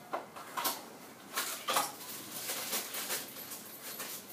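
Small metal parts and tools clinking and clattering as they are handled and set down, with four sharp clinks in the first two seconds and lighter rattles after.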